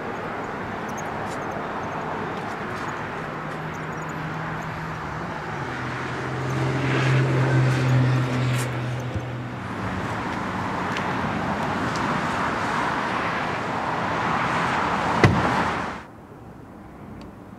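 Car engine and road noise, with a low engine note that swells for a few seconds about six seconds in, then cuts off suddenly near the end.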